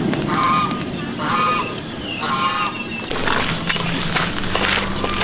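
Domestic fowl calling: four short honking calls in quick succession, followed from about three seconds in by sharp clattering as the wire grill rack is handled.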